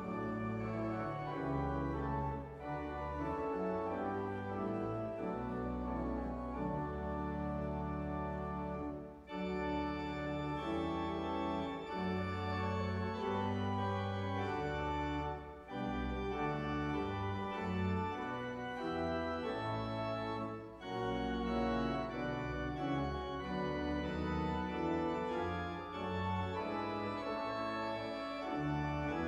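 Church organ playing a slow piece of sustained chords over long-held low bass notes, with a few brief breaks between phrases.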